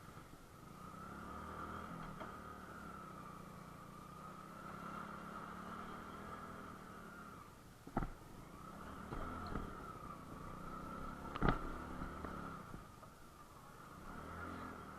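Motorcycle engine running steadily at low revs on a rough off-road track, with two sharp knocks about eight and eleven and a half seconds in.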